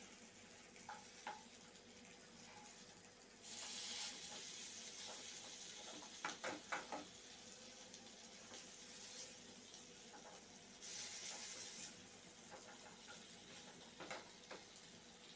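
Faint sizzle of besan-coated potato slices shallow-frying in oil, with a wooden spatula knocking and scraping against the pan as the slices are turned. The sizzle briefly grows louder twice, for about a second each, about three and a half and eleven seconds in.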